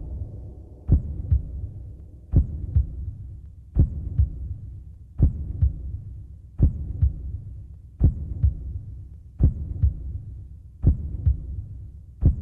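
Slow heartbeat sound effect, one lub-dub pair about every second and a half, over a low hum that swells with each beat and fades between them.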